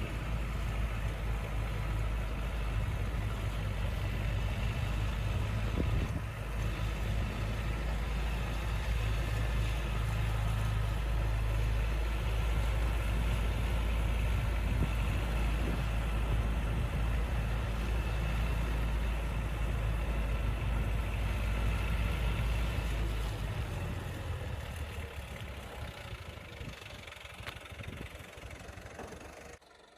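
A vehicle engine running steadily with a deep low rumble, dying away over the last several seconds before cutting off.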